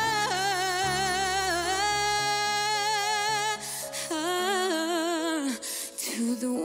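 A woman singing a slow ballad with vibrato on long held notes over sustained instrumental backing. About four and a half seconds in the low backing drops away and the voice carries on almost alone, moving down to lower notes.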